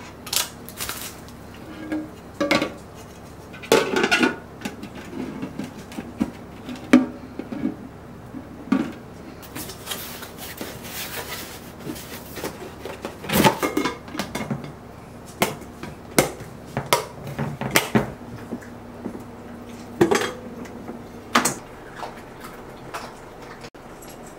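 Kitchenware being handled and set down: irregular clinks and knocks, with a few seconds of rustling about ten seconds in.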